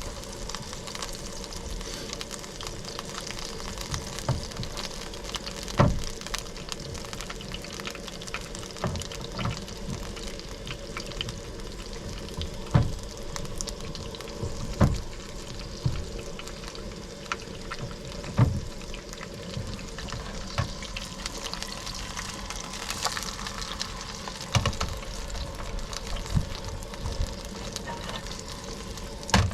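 Bread dough frying in hot grease in a pan: a steady sizzle with scattered sharp pops and knocks.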